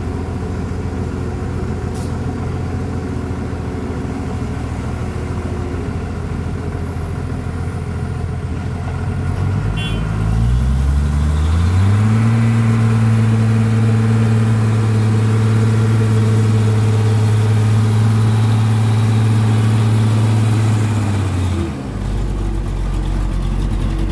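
Heavy diesel engines idling, then a dump truck's diesel engine revs up about ten seconds in and holds a high, steady rev under heavy load as it strains to pull out of deep mud. The engine drops back sharply near the end.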